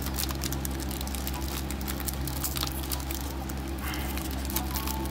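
Foil trading-card booster-pack wrapper crinkling and crackling as it is pinched and torn open by hand.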